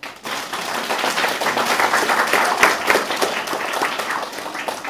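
Audience applauding: many hands clapping together, swelling in the middle and dying away near the end.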